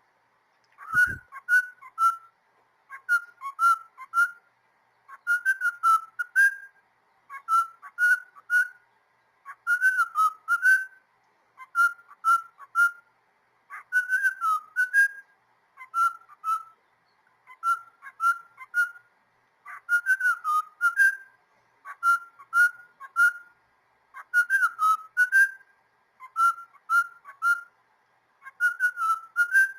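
Cockatiel singing: a short whistled phrase of a few wavering notes, repeated about every two seconds.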